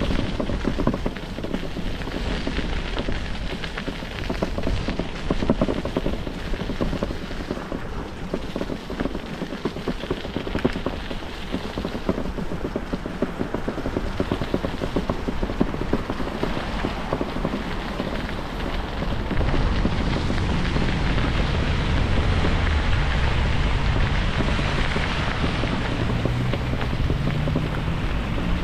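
Steady rushing noise of wind buffeting the microphone, with tyre noise, from a bicycle being ridden. About twenty seconds in a deeper rumble grows louder, with a faint rising drone near the end.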